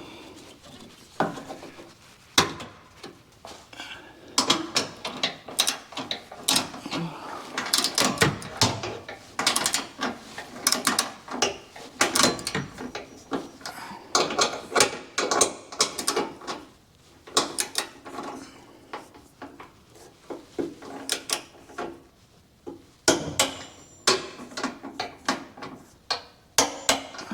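Hand ratchet with a 13 mm socket clicking in irregular runs as two stainless steel bolts are run into frame clip nuts and torqued down, securing an exhaust frame hanger.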